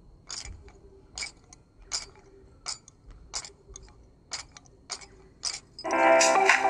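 Stacks of glass bangles clinking together as the wrists are shaken, eight short bright jingles roughly every three-quarters of a second. Near the end, background music begins.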